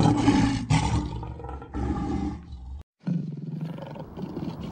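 A lion roaring, a dubbed sound effect: rough, loud roars that cut off abruptly just under three seconds in, leaving a quieter steady background.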